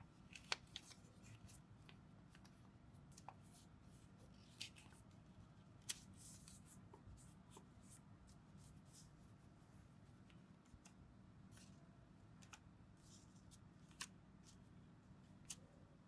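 Folded origami paper crinkling and crackling faintly as hands handle and shape it: a few short sharp crackles scattered through, over a faint steady low hum.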